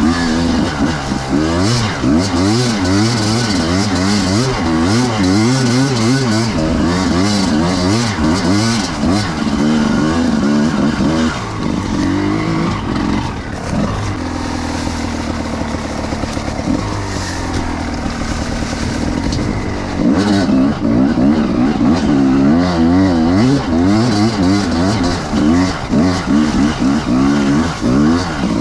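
Enduro motorcycle engine being ridden off-road, its revs rising and falling quickly and continuously. For several seconds midway it runs steadier and a little quieter, then goes back to revving up and down.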